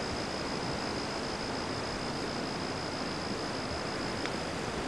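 Steady, even rushing noise of the storm outdoors, with a thin, steady high whine over it that stops near the end.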